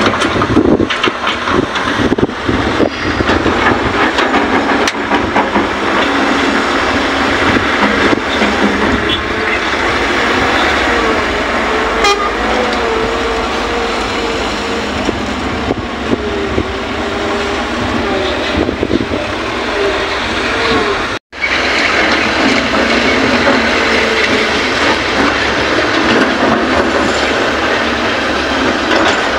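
Heavy diesel machinery at work, an excavator and dump truck running loudly and continuously, with a wavering whine through the middle stretch. The sound cuts out for an instant about two thirds of the way through, then resumes.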